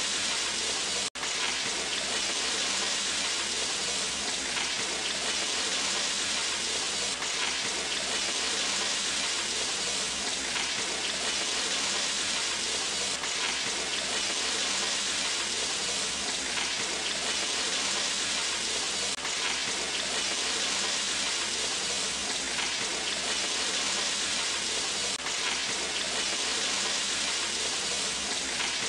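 Mixed peppers, onions and chillies sizzling in hot oil in a frying pan as they are stir-fried: a steady hiss that cuts out for an instant about a second in.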